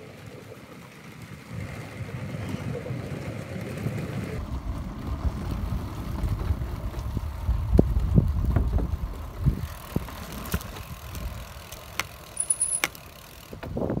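Bicycle rolling over a wooden boardwalk: the tyres rumble and knock over the planks, building to the loudest stretch around the middle, then easing, with a few sharp clicks near the end.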